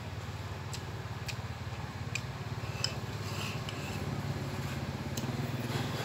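Chopsticks clicking lightly against a porcelain rice bowl while eating, a handful of small separate clicks over a steady low hum.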